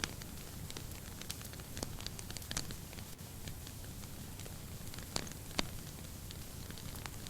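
Wood fire burning in a fireplace: a steady low rumble of flames with scattered sharp crackles and pops, the loudest a few seconds in.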